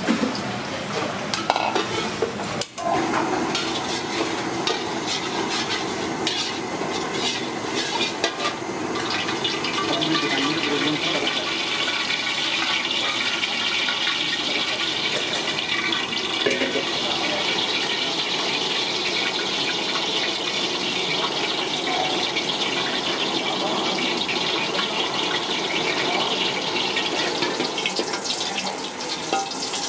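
Oil heating in a steel wok over a gas burner, giving a steady hiss that grows fuller about ten seconds in. A ladle clinks and scrapes against the wok over the first several seconds.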